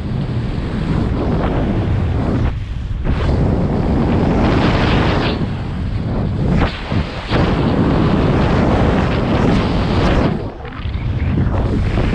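Rushing wind buffeting the microphone of a camera carried on a fast speedflying descent, a heavy, fluctuating roar of air that briefly eases three times.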